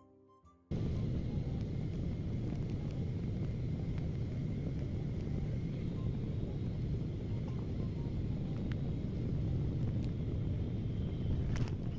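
Steady jet airliner cabin noise: a low, even rumble of engines and airflow that starts suddenly about a second in, with a few faint clicks near the end.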